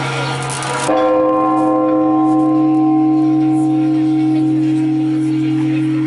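A large church bell, rocked by hand, is struck once about a second in and keeps ringing with long, steady tones, over the ringing of an earlier stroke.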